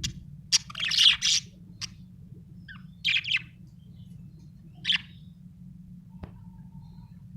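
Budgerigar chirping in short bursts of rapid high chirps, four bursts in the first five seconds, then falling quiet apart from a single sharp click near the end. A low steady hum runs underneath.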